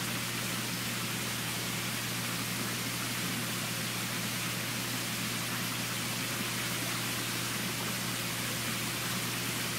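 Steady hiss of water in the culture tanks, with a low pump hum underneath.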